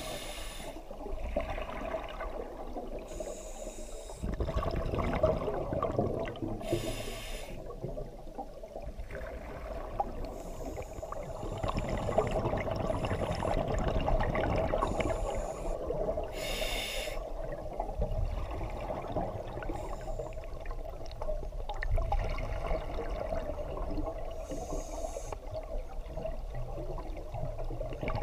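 Scuba diver breathing through a regulator underwater: bursts of hiss and bubbling every few seconds over a steady hum.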